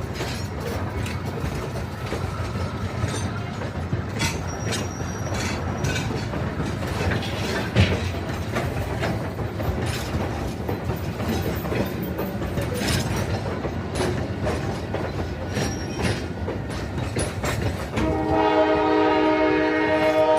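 Steam locomotive at the station: a steady rumble with scattered clanks and clicks, then near the end its steam whistle blows, a chord of several steady pitches held on without a break.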